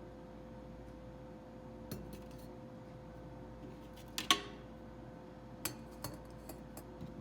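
Scattered clinks and knocks of dishes and cutlery being handled, the loudest about four seconds in with a brief ring, over a steady faint hum.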